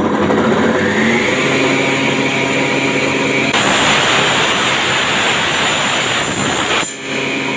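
Circular saw of a combination woodworking machine spinning up to speed with a rising whine, then cutting into wood for about three seconds with a louder, rougher sound as a tenon is ripped, and running free again near the end.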